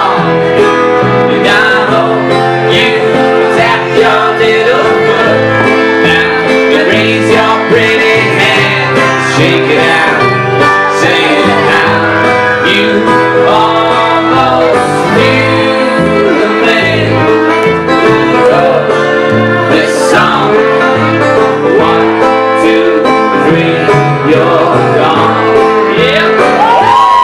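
Live acoustic string band playing in a bluegrass style: acoustic guitar, banjo, upright bass and fiddle.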